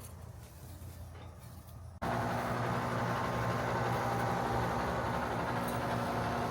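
Residential air-conditioner condensing unit running steadily, its compressor and fan giving a continuous hum over a rush of noise, freshly back in service with a new contactor and capacitor. The hum starts suddenly about two seconds in, after a quieter stretch.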